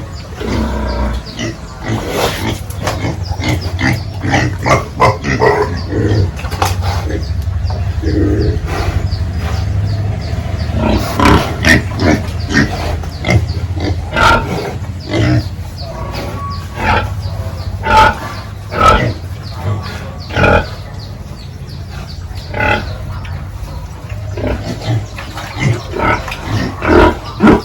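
Pigs grunting and squealing in many short calls, some in quick runs, over a steady low hum.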